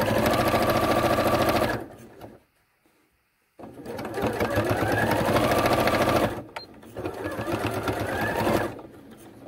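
Electric sewing machine stitching through fabric in three runs with short stops between, its motor whine rising as it speeds up at the start of each run. The first run ends about two seconds in, the second starts about a second later, and a shorter, quieter third run ends near the end.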